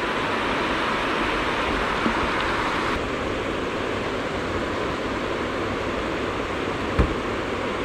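Water pouring steadily over a low river weir, a constant rushing noise. A single short low thump near the end.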